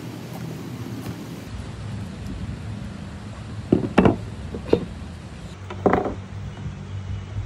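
A whole pumpkin and a large cleaver being handled on a wooden board: a few sharp knocks and thuds, two close together about four seconds in, another just after, and one more near six seconds as the cut lid is worked loose. A steady hiss with a low hum runs underneath.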